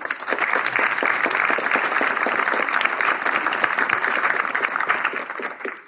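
Audience applauding: a steady spell of clapping that dies away quickly near the end.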